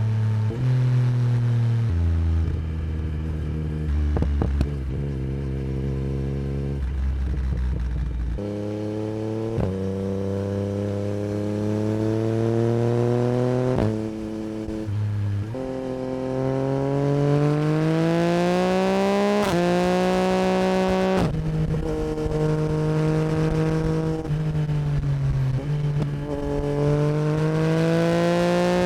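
Yamaha MT-09 SP's crossplane three-cylinder engine through an Akrapovic Racing Line exhaust, first holding a low, steady note with crackles, then accelerating hard from about eight seconds in, the pitch climbing and dropping back at each of several gear changes.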